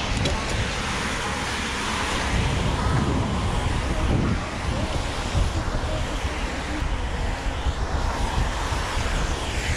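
Wind rushing over the camera's microphone as a mountain bike rides along a wet paved path, with the hiss of its knobby Schwalbe Magic Mary tyres on the wet surface and road traffic passing alongside.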